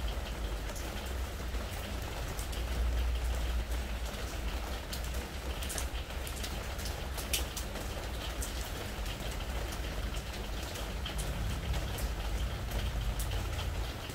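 Spring rain falling on a pressure-treated wooden deck: a steady patter with many separate drop ticks scattered through it, over a low, steady rumble.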